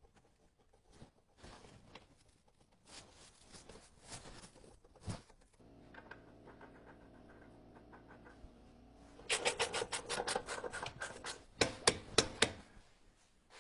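Hand tools working on a car's wheel hub: scraping and clinking, a steady hum from about six seconds in, then a fast run of ratchet-wrench clicks and a few louder metallic clicks near the end.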